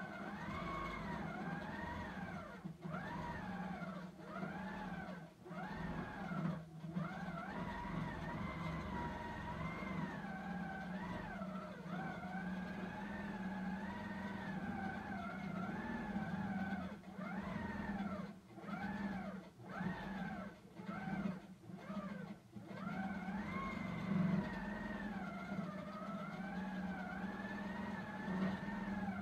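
Handi Quilter Simply Sixteen quilting machine stitching, its motor hum and whine rising and falling in pitch as the stitching speed changes. There are several brief stops, most of them a little past the middle.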